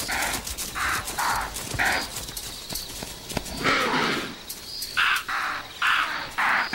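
An impala herd giving a string of short alarm snorts, about one every half second with a pause midway, a sign the herd has sensed a predator.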